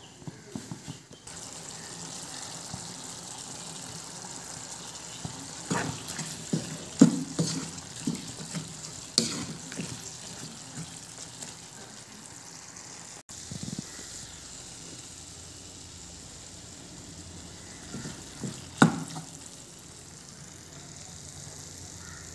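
Beef fry sizzling steadily in a nonstick pan, with a few sharp knocks and scrapes against the pan clustered about six to nine seconds in and once more near the end.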